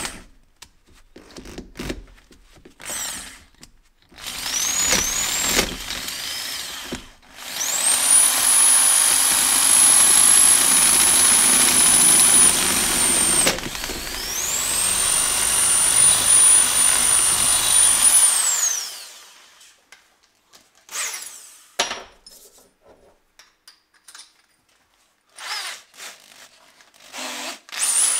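Hand-held electric drill boring out the remains of a broken spark plug in the cylinder head: a few brief spin-ups rising in pitch, then two long runs of about five seconds each with a high whine as the bit grinds through the metal, then several short bursts and a last spin-up near the end.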